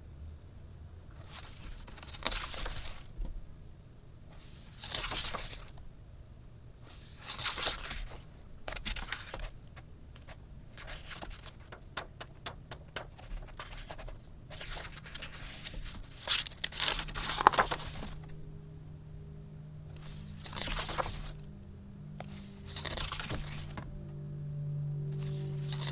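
Pages of a large hardcover photobook being turned by hand one after another, each turn a short papery swish and rustle, about every two to three seconds, with one louder turn past the middle.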